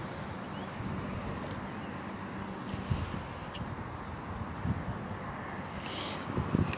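Outdoor ambience: wind gusting on the microphone, with a few short bird chirps.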